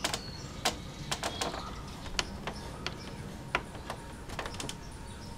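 Scattered sharp clicks and light knocks of a Yamaha R6's plastic fairing panels and their fasteners being fitted back on, about a dozen at uneven spacing.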